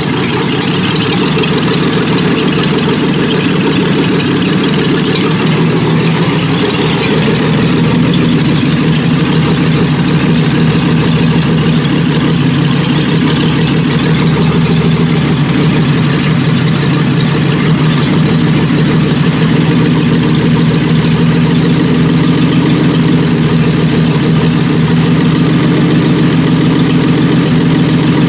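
Mercedes M123 straight-six petrol engine running at a steady idle.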